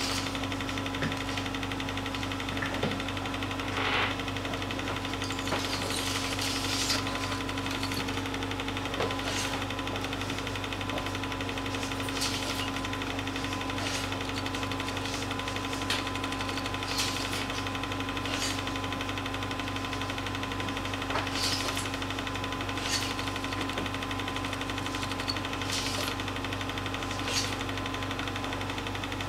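Film projector running: a steady mechanical hum and clatter, with scattered sharp clicks.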